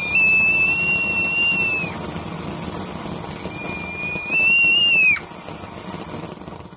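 Ground firework spraying sparks and whistling: two long, steady, high whistles, the first lasting about two seconds and the second starting about three and a half seconds in and bending upward as it cuts off about five seconds in, over a steady hiss.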